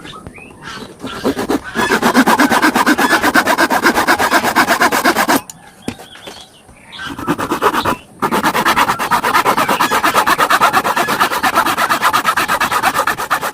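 Rapid, evenly repeated scraping strokes on wood, in two long spells with a short break between them.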